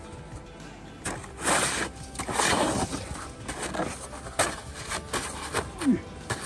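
Shovel scraping and chopping at hard, wet snow that has stiffened with water in it: a series of irregular rasping strokes starting about a second in.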